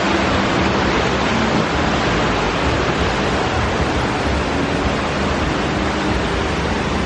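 Wind blowing across the microphone, a loud, steady noise that covers everything else.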